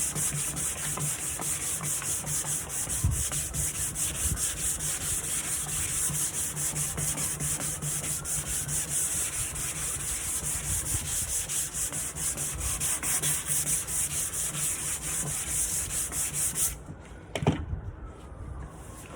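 Sandpaper scrubbing rapidly back and forth over the varnished wood of a nightstand, scuffing off the old finish to prepare it for primer. The rasping stops suddenly near the end, followed by a single knock.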